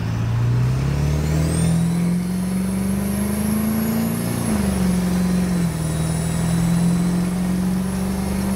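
1999 Ford F-250's 7.3-litre turbo-diesel V8 accelerating, heard from inside the cab. The engine note climbs for about four seconds, drops at a gear change, then holds steady. A high turbo whistle rises over it as boost builds.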